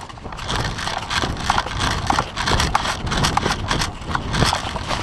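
Footsteps crunching through dry undergrowth and twigs, in a quick, uneven rhythm.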